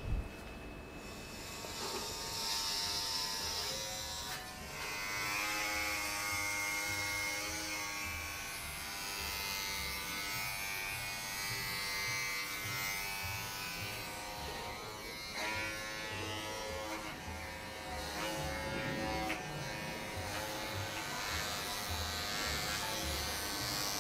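Handheld electric pet hair clipper buzzing as it trims a long-haired cat's fur.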